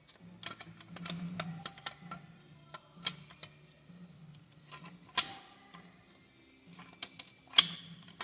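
Irregular clicks, taps and snaps of hard plastic parts inside a GM coolant flow control valve housing as they are worked and pried loose by hand, with a few louder snaps about three, five and seven seconds in.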